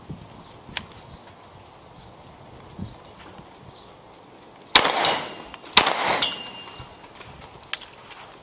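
Two shotgun shots about a second apart, each loud and sharp with a trailing echo.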